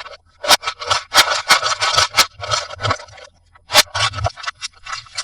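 Plastic toy parts and packaging being handled: scraping and crackling, broken by several sharp clicks and knocks at irregular intervals.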